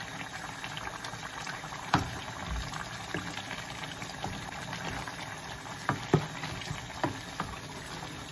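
A pot of vegetable soup with meat and prawns simmering with a steady bubbling, stirred with a wooden spoon that knocks against the heavy pot a few times: once sharply about two seconds in, and twice close together around six seconds. This is the soup's last few minutes of cooking.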